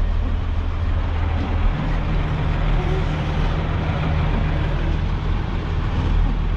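Diesel dump truck engine running steadily as the empty truck backs slowly onto loose fill to pack it down. A deeper steady hum joins in about two seconds in.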